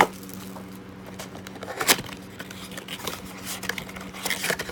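Cardboard blaster box and foil card packs being handled: light rustling and crackling with a sharp knock about two seconds in, over a steady low hum.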